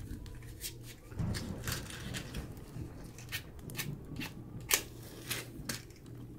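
A matchbox handled with a series of short dry clicks and scrapes, then a wooden match struck on the box and flaring alight to relight a pipe; the sharpest scrape comes about three-quarters of the way in.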